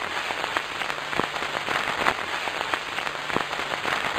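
Steady crackling hiss with irregular sharp clicks scattered through it, like the crackle of an old film reel.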